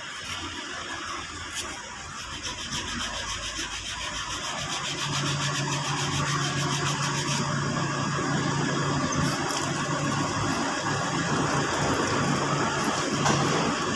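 An engine running with a steady low hum, growing louder about five seconds in.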